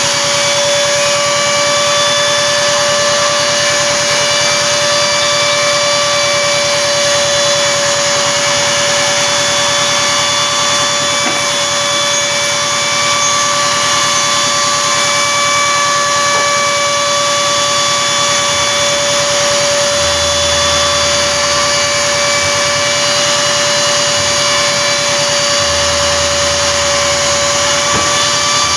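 CNC router's spindle motor running at a steady high whine, its bit engraving a pattern into a sheet as the gantry moves the head. A low hum comes in twice in the second half.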